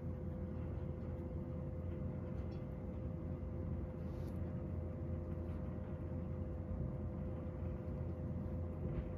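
Room heater running: a steady low hum with one constant mid-pitched tone, with a couple of faint, brief soft sounds about two and four seconds in.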